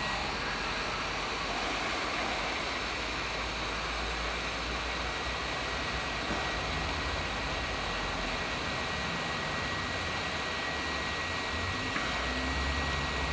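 Hot air gun running, its fan blowing a steady hiss with a thin, steady high whine.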